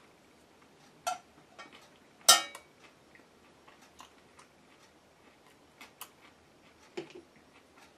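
Scattered clicks and clinks of a metal utensil against dishes while a man eats, with the loudest clink, briefly ringing, about two seconds in.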